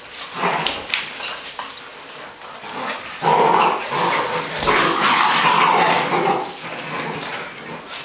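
A litter of about eight-week-old Great Dane puppies play-fighting: a few short yips in the first second, then a loud spell of puppy growls and barks from about three seconds in until past six seconds.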